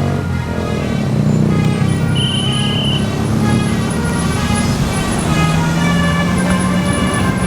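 Tour bus with a telolet horn, a multi-tone musical horn, sounding held notes over its running engine; the notes change about half a second in and again near five seconds. A short high tone sounds about two seconds in.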